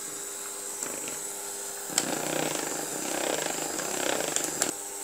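Siemens electric hand mixer running steadily, its twin beaters whisking thin cake batter in a bowl. A click about two seconds in, after which the whirring is louder.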